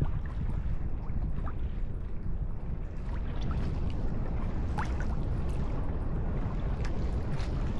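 Water sloshing and dripping around a kayak, with a few small splashes, over a steady low rumble. No ship's horn sounds.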